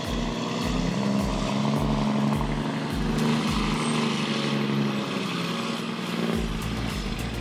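An engine running steadily at a constant pitch, over a steady bass beat of about two thumps a second that gives way to a low hum near the end.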